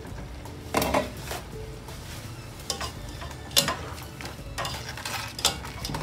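A plastic spatula stirring and tossing shredded vegetables in a non-stick wok, with several scrapes and knocks against the pan over a faint sizzle of frying.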